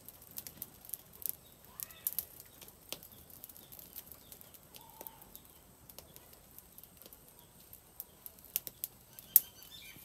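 Open wood fire crackling with irregular sharp pops while a whole chicken is singed in the flames, one pop near the end standing out loudest. Faint bird chirps behind.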